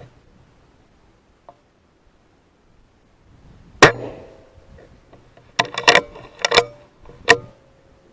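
Weihrauch HW100 pre-charged pneumatic air rifle firing one shot a few seconds in, a single sharp crack with a short ringing tail. About two seconds later comes a quick run of sharp metallic clicks and clanks, about six in all, some of them ringing.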